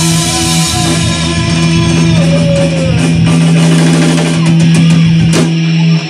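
Live rock band with electric guitars and drum kit playing loudly through the closing chord of a song, with a quick run of drum hits. The whole band stops abruptly right at the end.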